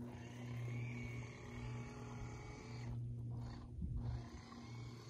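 Small remote-controlled airboat's electric motor and air propeller running: a steady low hum that drops out briefly about two and a half seconds in and again near the end.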